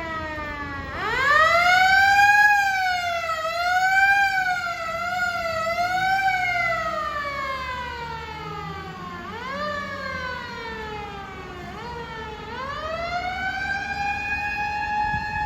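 Fire command car's electro-mechanical motor siren winding up quickly about a second in, wavering up and down at its peak, then falling in a long slow wail. It rises and falls once more, then winds back up and holds high near the end.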